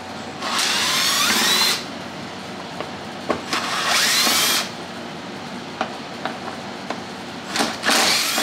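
Power drill-driver running in three short bursts of about a second each, rising in pitch as it spins up, with small clicks between them. It is backing out Torx screws from the side-by-side's front grille panel.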